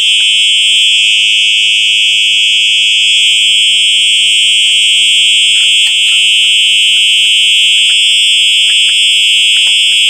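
Fire alarm sounder on test, giving a loud, continuous high-pitched tone that holds steady without pulsing.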